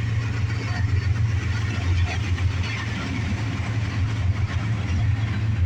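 CSX freight train's diesel locomotives passing close by with a steady low rumble, the noise of the train rolling along the rails laid over it.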